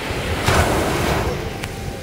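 Small sea wave breaking and washing up the sand: a rush of surf that swells about half a second in and slowly fades, with a single click near the end.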